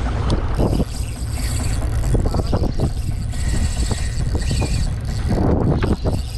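Steady low rumble of a fishing boat's engine, mixed with wind buffeting the microphone.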